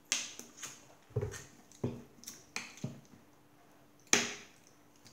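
Two people gulping juice from plastic bottles: a string of short, sharp swallowing and glugging sounds. One louder sudden sound about four seconds in.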